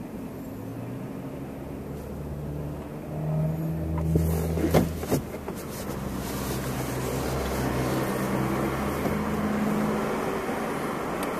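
Car engine heard from inside the cabin as the car drives off, its pitch rising a few seconds in, then a steady drone under building road noise. A few short sharp sounds come near the middle.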